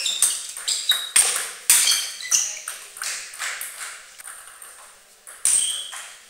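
Table tennis ball ringing off paddles and table in quick sharp pings as a rally ends about two seconds in, followed by weaker bounces that fade out. One more sharp hit comes near the end.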